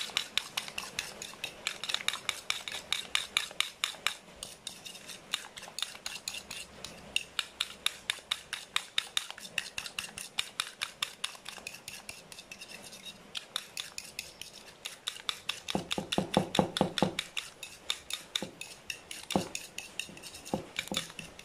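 Metal spoon beating an egg in a plastic bowl: rapid, even clicks of the spoon striking the bowl, several a second, with a stretch of heavier strokes about three-quarters of the way through.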